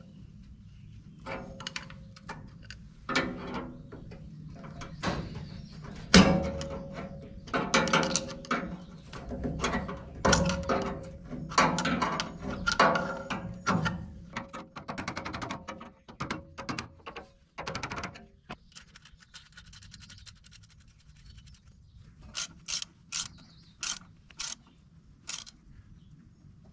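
Hand socket ratchet clicking in quick runs with short pauses as the alternator mounting bolt is tightened down onto a newly machined spacer. After a lull, a few separate clicks come near the end as the bolt is brought tight.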